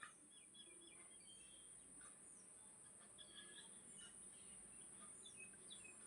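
Faint birds chirping: many short, high chirps and quick downward-sliding calls, over a steady high-pitched hiss.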